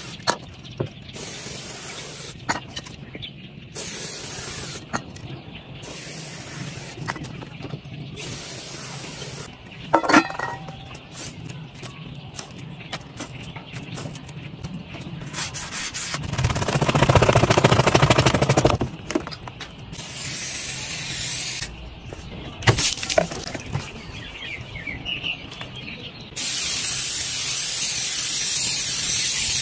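Aerosol spray cans hissing in short bursts of about a second each as paint is sprayed through a stencil, then one long continuous spray near the end. About halfway through comes the loudest sound, a few seconds of rasping, which is adhesive stencil tape being peeled off the car.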